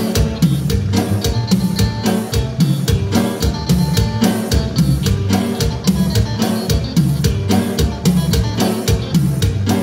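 A live dance band playing an instrumental number over a loud PA: a steady, driving drum-kit beat with bass and electronic keyboard.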